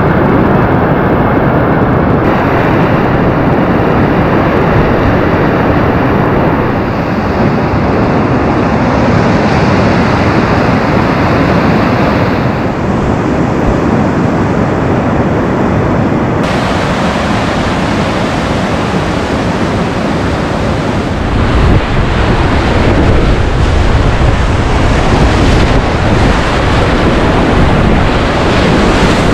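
Loud, steady rush of river whitewater rapids, heard close up from a kayak. The low rumble grows heavier about twenty seconds in.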